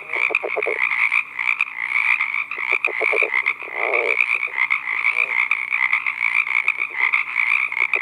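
Male California red-legged frog giving its advertisement call to attract a female: several short runs of low, stuttering pulses, the densest about four seconds in, over a steady high-pitched background chorus.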